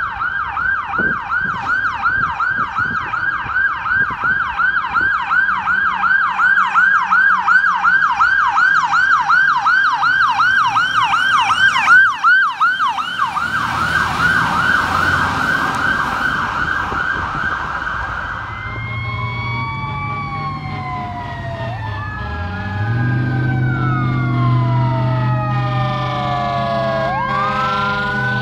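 Fire truck's electronic siren on a fast yelp, about three sweeps a second, getting louder as the Seagrave ladder truck passes, with a brief loud burst about twelve seconds in. About two-thirds of the way through it gives way to slower wailing sirens rising and falling over the low drone of a truck engine.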